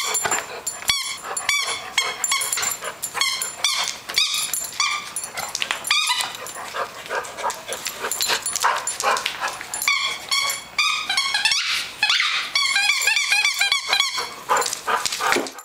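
A rubber squeaky toy squeaking over and over in quick, uneven bursts as a large dog chomps on it, with a few sharp clicks in between.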